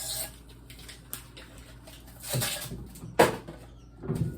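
Kitchen handling noises during cooking: a few separate knocks and scrapes of cookware and containers being moved, the sharpest knock about three seconds in.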